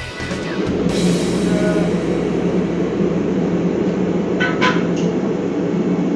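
Background music fades out about a second in. It gives way to a loud, steady mechanical noise, with a few short higher-pitched sounds about four and a half seconds in.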